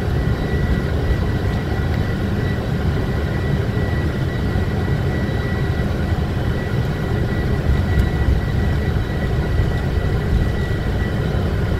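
Boeing 747 on its takeoff roll, heard inside the flight deck: a steady, dense rumble of the engines and the wheels on the runway, with a thin, high, steady whine above it.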